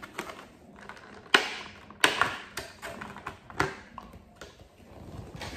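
Cardboard box and plastic packaging being handled as a vinyl Funko Pop figure is taken out: a few sharp clicks and crackles, the loudest about a second and a half and two seconds in.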